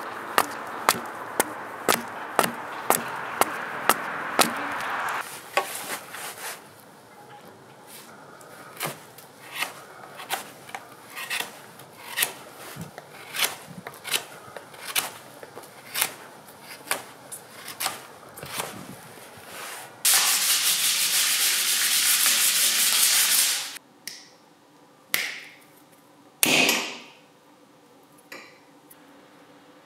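Axe chopping a wooden stake on a stump, sharp blows about two a second; then a knife whittling the wood in regular strokes. Later comes a loud steady rasping hiss for about four seconds, and near the end a couple of sharp clicks of snips cutting perforated steel strap.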